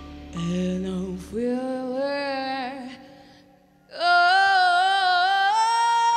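Female vocalist singing solo with little or no accompaniment: short phrases with vibrato, a brief pause, then from about four seconds in a long, loud held note that steps up in pitch once before the end.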